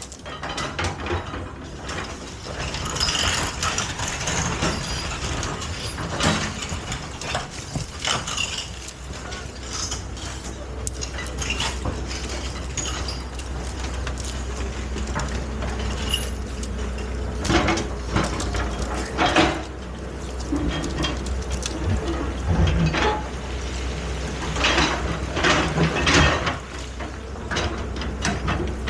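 Excavator working: a steady low engine hum with repeated metallic clanks and knocks, several coming in clusters in the second half.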